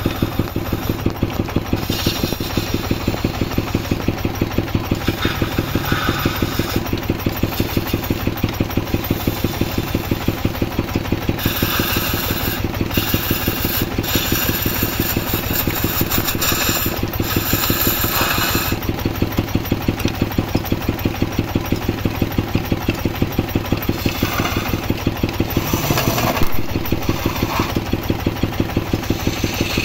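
Wood lathe running with a steady, fast rhythmic pulse and low hum, while a hand-held gouge cuts the spinning wooden vase blank. The scraping of the cut comes and goes in passes, the longest and loudest from about twelve to nineteen seconds in.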